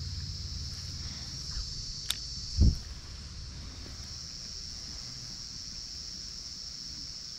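Insects trilling steadily at a high pitch, with a sharp click about two seconds in and a short low thump just after it, the loudest sound.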